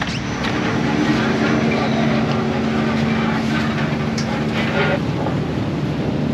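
Commercial fishing boat's engine running steadily: a continuous low drone with a steady hum that fades out about five seconds in.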